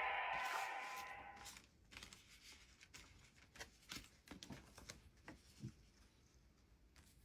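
The electronic finisher sound effect and music of a Kamen Rider Legend toy transformation belt fading out. This is followed by faint, scattered plastic clicks and rustles as the belt and its cards are handled.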